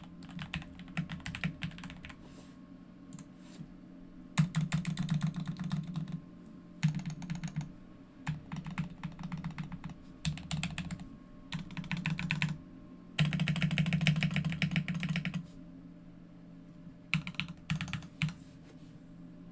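Mechanical keyboard typing on a GK61 with lubed and filmed Gateron Milky Yellow linear switches. The keys are struck in quick bursts of a second or two with short pauses between them, the longest and loudest run about two thirds of the way through.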